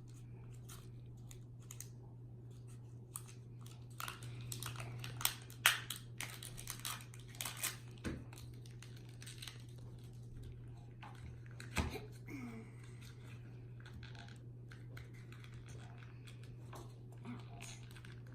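Small clicks, crinkles and squishes of hands opening and digging into a Poopsie Cutie Tooties plastic slime package, busiest in the middle, over a steady low hum.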